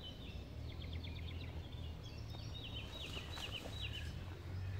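Small songbird singing: two quick runs of high, down-slurred notes, the first early and the second in the middle, over a steady low rumble.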